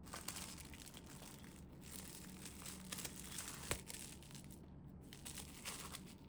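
Plastic food packaging or cling wrap crinkling as it is handled and pulled open, in uneven spurts with one sharp click a little past the middle.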